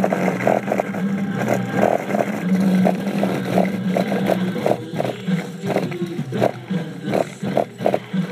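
300-watt-max Lightning Audio subwoofer played in free air and pushed hard to destroy it: a loud, buzzy bass drone broken by many irregular sharp clicks from the strained cone.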